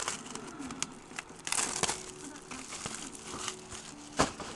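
Plastic shrink wrap crinkling and tearing as it is peeled off a cardboard trading card box, with scattered clicks and one sharp click near the end.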